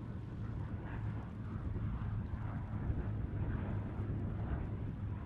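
A BAe Jetstream's twin Garrett TPE331 turboprop engines running as the aircraft rolls along the runway: a steady low rumble.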